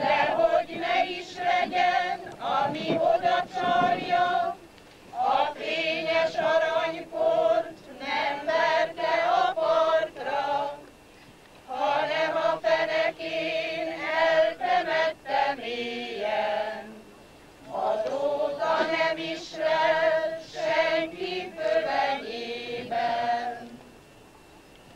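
Choir singing unaccompanied, in four long phrases separated by short breaths.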